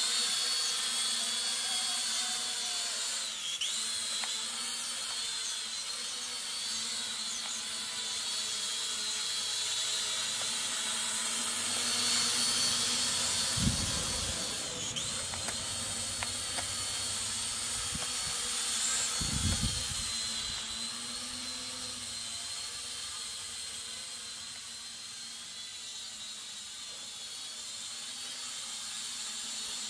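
Small quadcopter drone hovering and flying, its propellers giving a steady high-pitched whine that wavers slightly in pitch as it manoeuvres.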